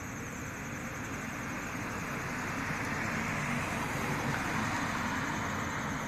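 Road traffic: the steady rush of a passing vehicle's tyres and engine, swelling slowly and loudest in the second half.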